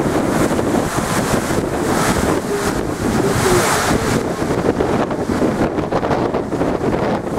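Storm waves surging against a sea wall, with heavy wind buffeting on the microphone; a louder hissing surge about halfway through.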